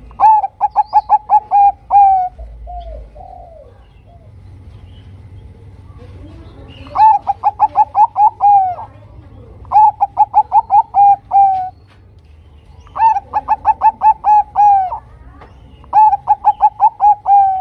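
Bangkok-strain zebra dove (perkutut) singing: five phrases of rapid, evenly spaced cooing notes, each run of about eight or nine notes ending on a slightly longer, falling note.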